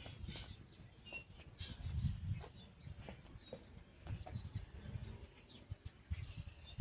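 Birds chirping, short scattered calls, over faint low rumbles.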